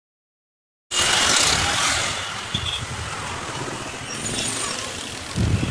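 City road traffic: engines running and tyre noise as cars and a bus pass, cutting in abruptly about a second in after silence.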